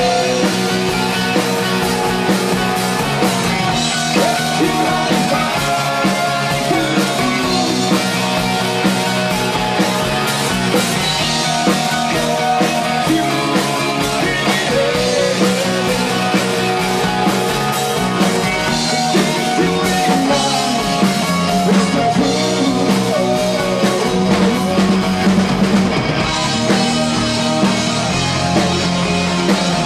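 Live rock band playing: a male lead vocal sung over electric bass guitar, guitar and drum kit, continuous and steady in loudness.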